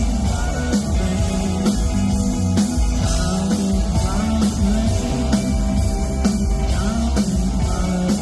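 Live rock band playing: two electric guitars, bass guitar and drum kit, with a repeating bass line under a steady drum beat.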